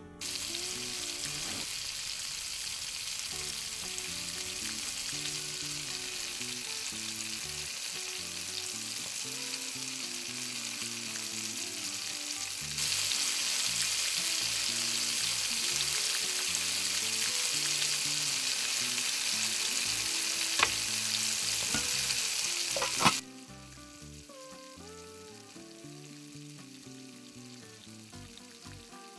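Sizzling of food frying in a pan: a steady hiss that starts suddenly, gets louder about halfway through, has two sharp clicks near the end, and then cuts off abruptly.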